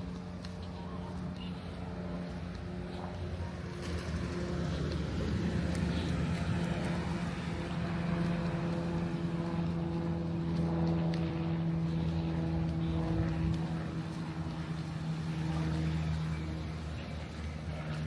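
An engine running at a steady, unchanging pitch. It grows louder a few seconds in and eases off slightly near the end.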